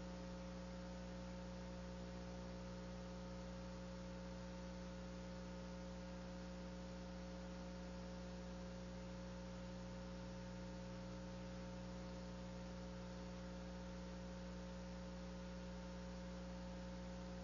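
Steady electrical hum: several unchanging tones over a faint hiss, with no change throughout.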